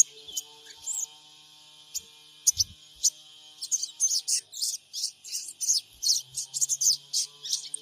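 Crimson sunbird (sogon) calling: high-pitched short chirps and twitters, a few scattered at first, then a fast, dense run of calls from about three and a half seconds in.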